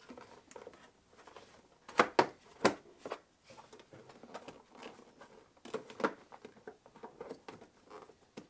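Sharp clicks and knocks of a plastic battery box cover being handled and pressed into place in a car's engine bay, with the loudest cluster about two seconds in and another group about six seconds in.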